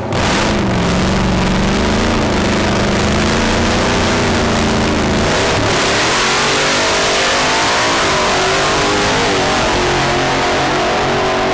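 Supercharged drag-racing doorslammer's engine running at low revs on the start line. About six seconds in it launches at full throttle, and its pitch climbs as it pulls away down the strip.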